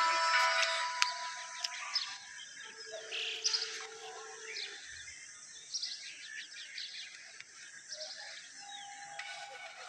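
Small birds chirping: short, high calls scattered through, over a faint steady background noise.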